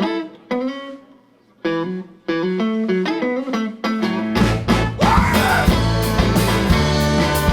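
Instrumental rock song intro: a guitar plays a picked phrase alone, breaking off briefly, then bass and drums come in with the full band about four seconds in.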